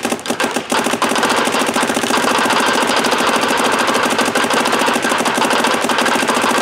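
Dye M3+ electronic paintball marker firing a continuous rapid stream of shots, about 15 balls a second, slightly uneven in the first second and then steady. It is feeding and firing cleanly without breaking a ball.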